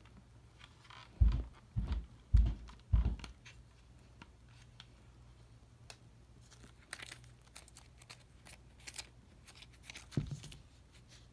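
Close handling noise during an unboxing. Four dull thumps come about a second in. Later there is a run of packaging crinkling and tearing, and one more thump near the end.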